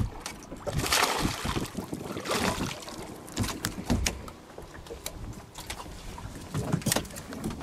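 Splashing as a hooked largemouth bass is brought to the boat and landed, with two swells of splashing in the first few seconds, then scattered knocks and thumps of the fish and handling on the boat's deck.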